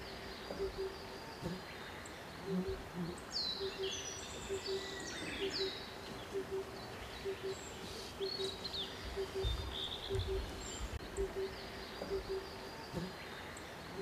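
Oriental cuckoo calling a low, hollow note in steady pairs, repeated through the whole stretch. Above it run quick high chirps and short falling whistles from other birds.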